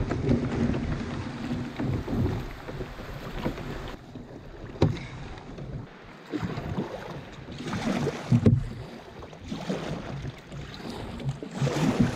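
Water sloshing and splashing around a fishing kayak, with wind buffeting the microphone and a few sharp knocks.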